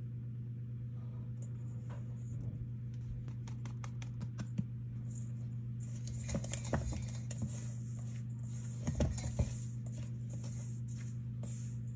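A utensil stirring dry flour mix in a stainless steel bowl: light taps and clicks against the metal, then from about halfway a soft scraping hiss with a few knocks. A steady low hum runs underneath.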